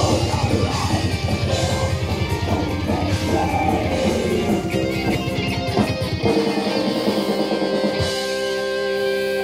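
A live rock band playing loud, with electric guitar and a pounding drum kit; about six seconds in the drums drop out, leaving a sustained chord that holds steady.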